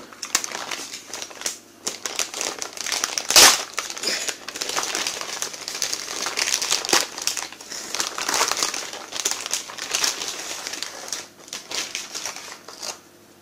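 Clear plastic packaging bag crinkling as it is handled and opened, with one sharp, louder crackle about three and a half seconds in.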